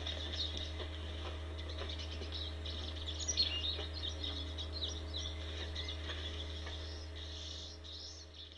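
Small birds chirping in quick, overlapping calls over a steady low hum, fading toward the end.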